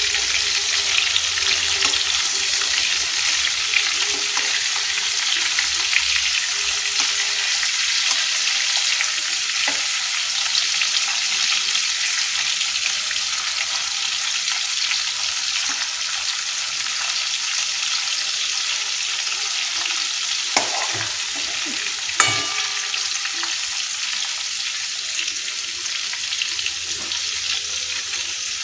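Marinated prawns frying in hot oil in a steel kadai, a steady sizzling hiss as they are turned with a metal spatula. The spatula knocks sharply against the pan twice, about two-thirds of the way in.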